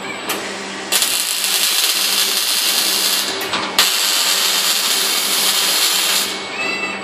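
Robot's wire-feed (MIG) welding arc crackling and hissing steadily. It starts about a second in and stops near the end, with a brief break around the middle that ends in a sharp click as the arc restrikes. A steady machine hum runs underneath, and a short whine follows the weld.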